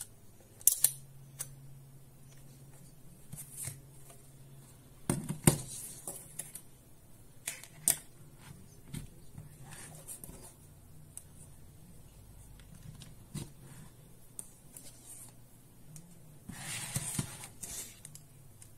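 Hands handling a plastic digital multimeter and its test leads: scattered sharp clicks and knocks, the loudest about five seconds in, then a short rustling scrape near the end.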